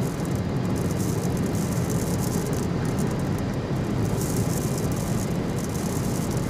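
Steady road and wind noise inside the cabin of a moving car.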